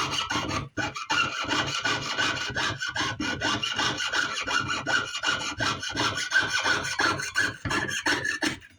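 Jeweler's saw cutting out a feather shape, with quick, even back-and-forth strokes at about four a second and a faint squeal from the blade. The sawing stops abruptly near the end.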